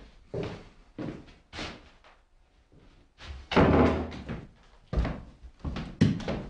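Thuds and knocks from an office door with a frosted glass panel being shut, and from a man's footsteps on the floor. There are several separate knocks, and the loudest, longest thud comes about halfway through.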